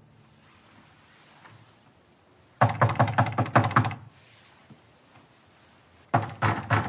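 Rapid knocking on a wooden panelled door, in two rounds: a quick run of knocks lasting over a second about two and a half seconds in, then another run near the end.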